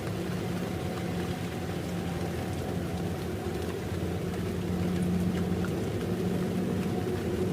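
Kubota DC-70 combine harvester's diesel engine and threshing machinery running steadily under load, a constant drone while it harvests rice.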